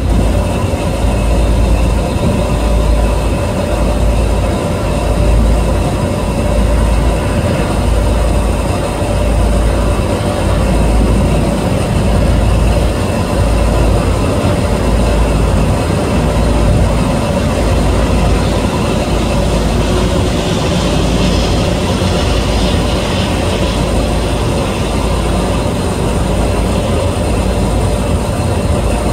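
Steady drone of a boat's engine running without change, with wind rumbling on the microphone.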